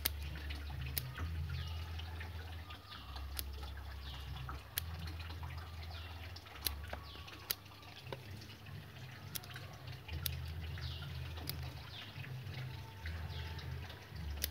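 Scissors snipping leaves off a waru Taiwan bonsai, sharp irregular snips every second or two. Behind them are a low hum and a run of faint drip-like sounds.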